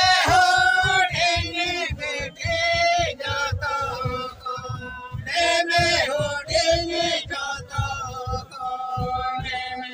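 Men singing a Santali folk song in a chanting style, accompanied by banam, the Santali bowed fiddle, over a steady low beat.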